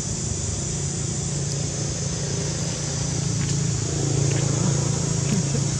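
A steady low engine hum, a little louder about four seconds in, with a constant high-pitched hiss above it.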